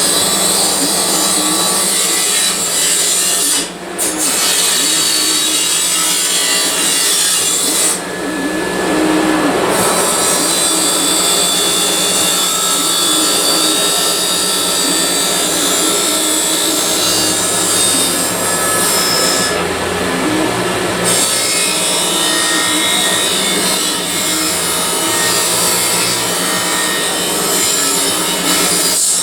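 Handheld electric grinder working steadily against sheet metal: a harsh abrasive hiss over a constant motor hum. The grinding hiss lets up briefly about 4, 8 and 20 seconds in while the motor keeps running.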